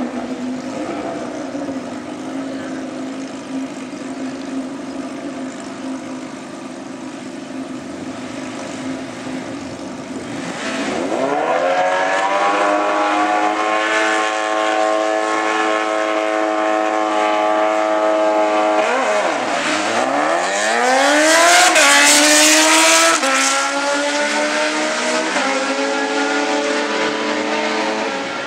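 Two drag-racing sport motorcycles running at the start line, then revved up about a third of the way in and held at a high steady pitch. Just past halfway the revs dip and climb sharply as they launch, loudest as they leave the line, then rising again through the gear changes as they pull away down the strip.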